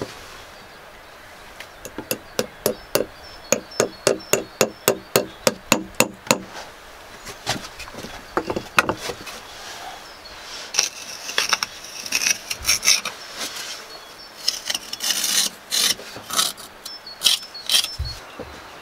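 Hammer blows driving a stake into the earth floor, a steady run of about fifteen strikes at roughly three a second, followed by a few scattered knocks. After that come stretches of scraping and rustling as the string line is stretched and handled near the ground.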